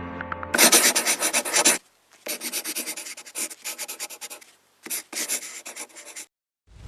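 Rapid back-and-forth rubbing strokes, about eight a second, in three runs separated by short pauses.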